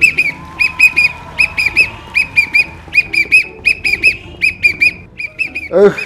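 Pink plastic sports whistle blown in quick short toots, two or three at a time, repeating in a steady rhythm. Near the end, a brief rising sound cuts across it.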